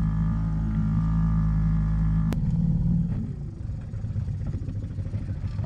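Small outboard motor pushing an inflatable dinghy at a steady pace, then throttled back with a sharp click a little over two seconds in, dropping to a lower, uneven idle as the dinghy comes up to the sailboat's stern.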